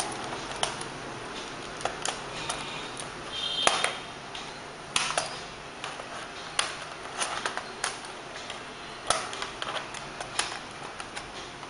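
Irregular plastic clicks and taps as the keyboard of an Acer 4730G laptop is worked loose and pried out of its case, with a brief thin squeak about three and a half seconds in.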